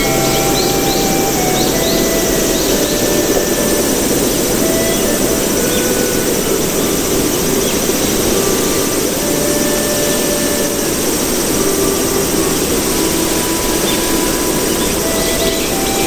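A loud, steady rushing noise, like a jet or strong wind, with faint short tones at changing pitches scattered through it.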